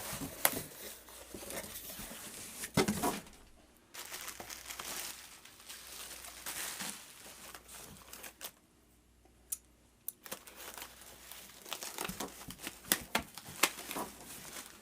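Guitar packaging being unwrapped by hand: irregular crinkling and tearing with sharp clicks and knocks, pausing briefly past the middle.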